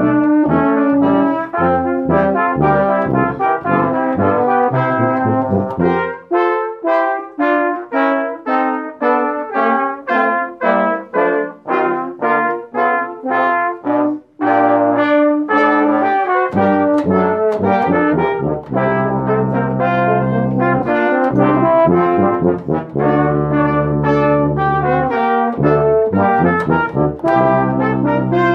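Brass ensemble playing live in harmony. About six seconds in, the low parts drop out and the upper parts play short, detached notes, with a brief break near the middle. The low brass then comes back in with held bass notes for the rest of the passage.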